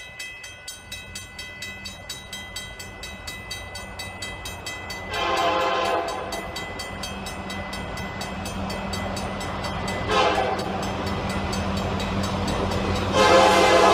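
Railroad crossing bell ringing rapidly and steadily as a diesel freight locomotive approaches the crossing, its rumble growing louder. The locomotive sounds its horn three times for the crossing: a blast about five seconds in, a short one about ten seconds in, and a long, louder one near the end.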